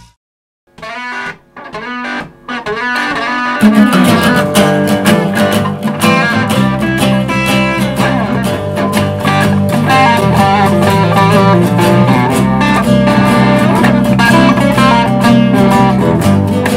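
Rock band playing the instrumental intro of a blues. A guitar plays a few short phrases with pauses, then about four seconds in the full band comes in with guitars and bass in a steady groove.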